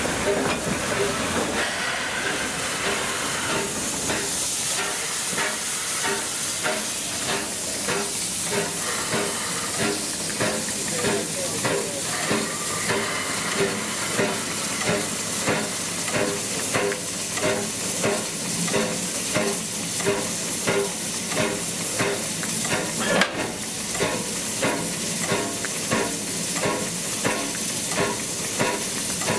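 Steam locomotive working, with a continuous hiss of steam and a steady rhythm of beats.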